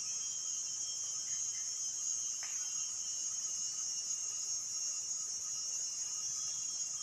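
Steady high-pitched insect chorus of crickets or cicadas, with fainter steady insect trills lower down and one brief faint chirp about two and a half seconds in.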